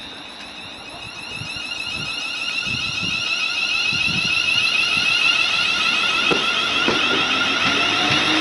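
Siemens Desiro Class 380 electric multiple unit pulling away, its traction motors giving a high, steady multi-toned whine that grows louder, with a lower tone rising in pitch near the end as it gathers speed. Wheels knock over the rail joints in the second half.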